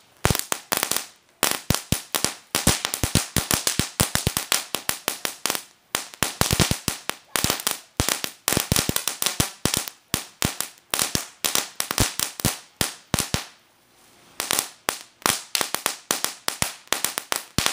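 World Class Fireworks 'Cracker Barrel' going off in a rapid string of sharp firecracker bangs, several a second, with a brief lull about three-quarters of the way through before the bangs resume.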